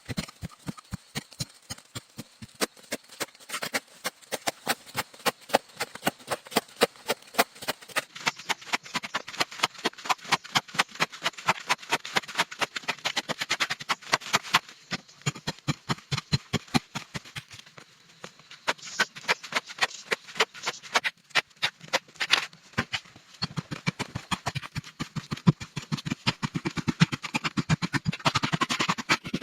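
A steady run of sharp, rapid knocks, about four a second, with a brief pause around the middle.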